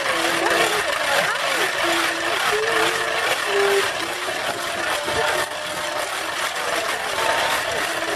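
A large crowd outdoors: many overlapping voices over a steady hiss, with a few short held voice notes standing out now and then.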